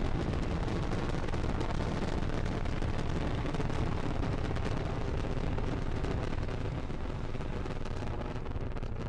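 Falcon 9 rocket's first-stage engines firing during ascent: a steady deep rumble laced with crackling, easing slightly near the end.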